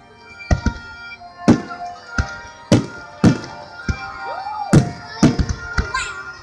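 Fireworks shells bursting overhead in a rapid series of about a dozen sharp booms, coming quicker near the end, over music playing with the show.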